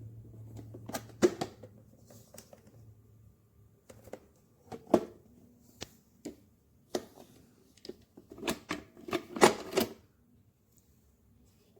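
Stainless steel electric percolator perking, with a run of irregular sharp pops and knocks that bunch together near the end. A faint low hum fades out in the first few seconds.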